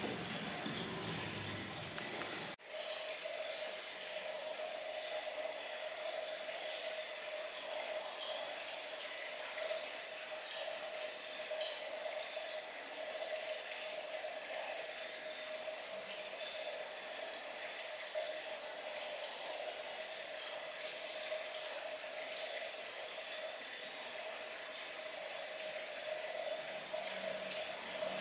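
Steady running water, a tap running into a salon shampoo basin, starting after a brief break near the start.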